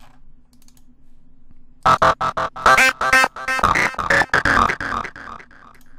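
Software synthesizer preset on Steinberg HALion 6's Trip virtual analog synth playing a fast pattern of short, sharp-attacked notes, starting about two seconds in and dying away shortly before the end. The notes come from HALion's FlexPhrase arpeggiator.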